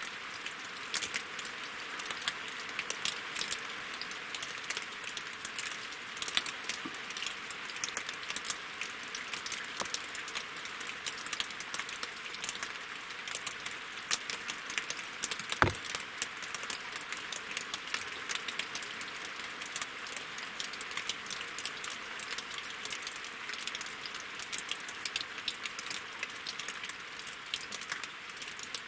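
Winter rain falling on a lake and on logs: a steady dense patter of drops, with one louder drop about halfway through.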